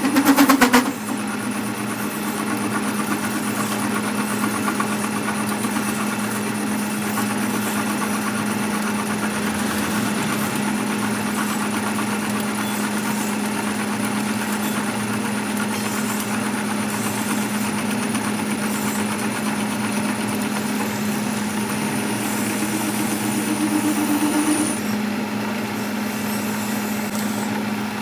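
Workshop machine running steadily with a constant hum and a thin high whine, after a brief loud rattle at the very start. The whine stops a few seconds before the end.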